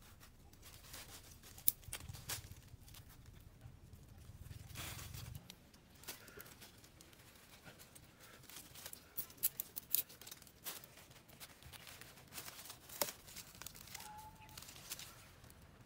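Hands rustling dry leaf litter and pushing small sticks into the soil, with scattered sharp snaps and clicks, a quick cluster of them about nine to ten seconds in.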